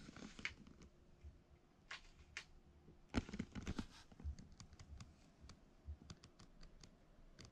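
Faint handling noise inside a small box blind: scattered clicks and rustles as the camera is moved, a louder cluster a few seconds in, then a run of light ticks near the end.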